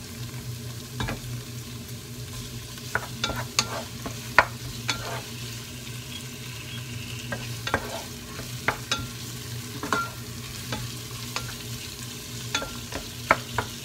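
Chicken pieces frying with onion and garlic in olive oil in a pot, sizzling steadily while a wooden spoon stirs them and knocks against the pot now and then in irregular clicks. A steady low hum runs underneath.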